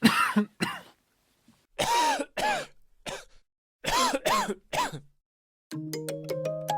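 A person coughing in three short fits of two or three coughs each. Light mallet-percussion music comes in near the end.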